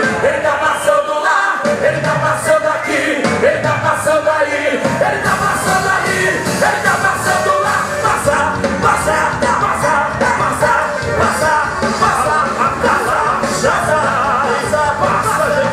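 Worship song with voices singing over a steady beat, cymbal hits ticking in time.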